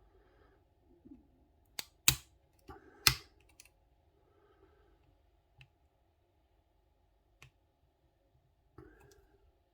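Sharp metallic clicks of a hook pick and tension wrench working the pins of a Yale night latch rim cylinder. There is a cluster of louder clicks about two to three seconds in, then a few fainter, scattered ones.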